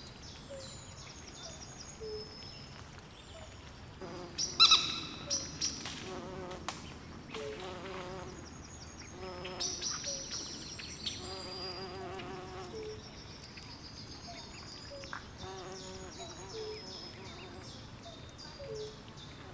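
Night swamp chorus of frogs and insects: short chirping calls repeating about once a second, high rapid trills over them, and a single louder call about four and a half seconds in.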